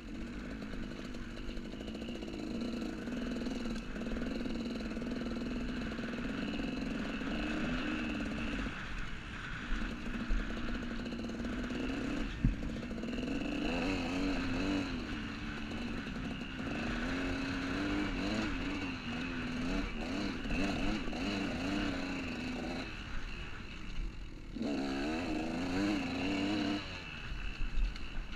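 2001 KTM 200 EXC single-cylinder two-stroke engine revving up and down with the throttle while riding a dirt trail. Its pitch wavers constantly and drops back several times. There is a sharp knock about twelve seconds in.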